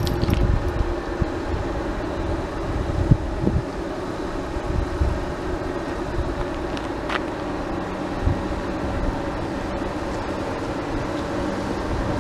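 Steady low rumble and engine drone of an N700S Shinkansen car being moved slowly across a level crossing, with one sharp click about seven seconds in.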